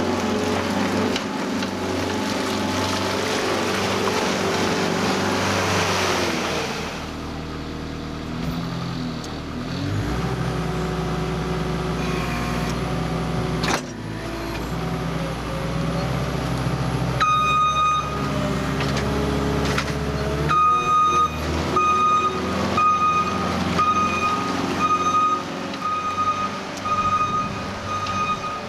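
Skid-steer loader's diesel engine working, with a loud rushing noise for the first several seconds. A reversing alarm comes on in the last third, first one held tone, then beeping about once a second.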